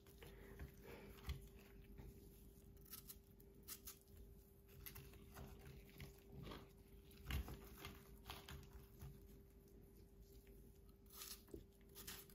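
Faint kitchen knife cutting through soft watermelon flesh and pieces being pressed into a hollowed watermelon rind: scattered soft crunches and clicks, the strongest about seven seconds in, over a steady faint hum.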